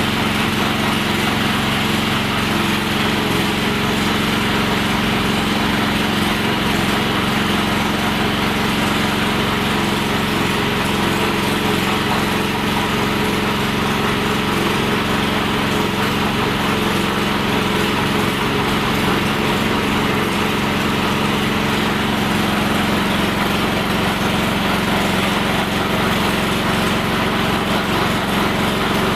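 Vertical pellet mill running steadily under power with an unchanging hum, pressing feed pellets.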